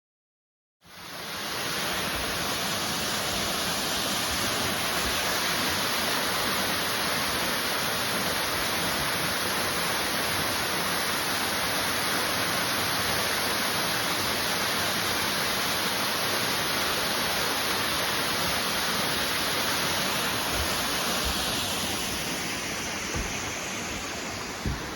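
Large waterfall rushing: a steady, dense hiss of falling water that cuts in abruptly about a second in and eases a little near the end.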